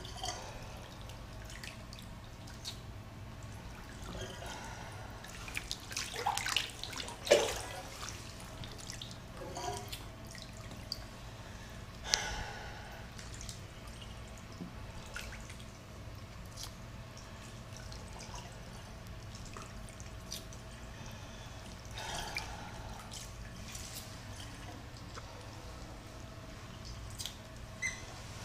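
Bathwater sloshing and dripping as a person in a filled bathtub shifts about, with a few louder splashes, the loudest about seven seconds in, over a steady low hum.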